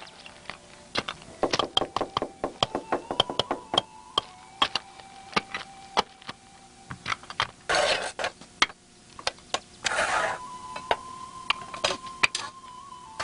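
Building-site work sounds: irregular sharp taps and knocks of hammering and handled bricks, thickest in the first few seconds, with two short rasping sounds about eight and ten seconds in. A faint steady high tone runs underneath.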